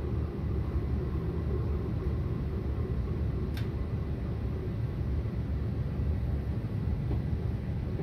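Antique Westinghouse Mini Sidewinder shaded-pole ceiling fan running near full speed with a steady low hum and rumble; its bearings are rough and dry and it is being run in after a dose of WD-40. A single sharp click comes about three and a half seconds in.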